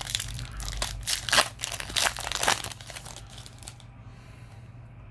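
Foil booster pack wrappers crinkling and tearing as packs are handled and opened, a run of crackly rustles that dies away about four seconds in.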